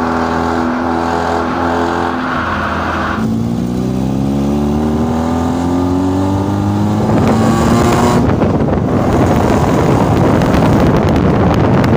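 Car engine running at a steady pitch, then dropping about three seconds in and climbing steadily for about five seconds as the car accelerates. From about eight seconds in, loud rushing wind and road noise cover the engine.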